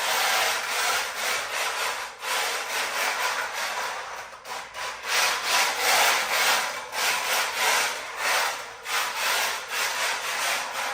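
Remote-control toy car's drift wheels sliding and scrubbing across the floor, a noisy scraping that swells and eases every second or so as the car drifts.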